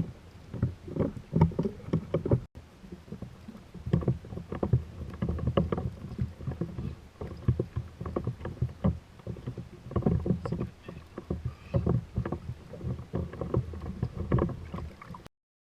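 Water slapping and knocking against a plastic fishing kayak's hull in irregular strokes over a low rumble, cutting out briefly near the end.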